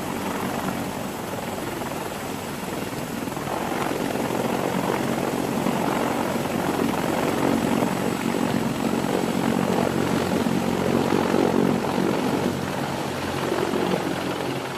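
CH-53E Super Stallion three-engine heavy-lift helicopter hovering and lifting off, its rotors and turbine engines running steadily at high power, growing louder about four seconds in.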